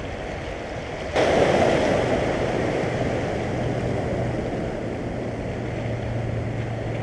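Sea waves washing against the shore rocks, with a sudden loud rush of water about a second in that slowly dies away. A steady low hum runs underneath from about two seconds in.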